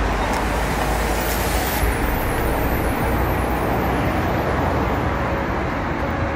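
Steady road traffic noise with a low rumble, and a higher hiss over the first two seconds that stops suddenly.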